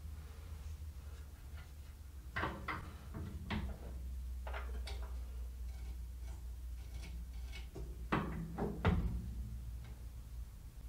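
Metal clicks and knocks of a stop bolt and its locknut being turned by hand under a cast-iron bandsaw table, setting the table's level stop. The knocks come in two clusters, about two to five seconds in and about eight to nine seconds in, over a steady low hum.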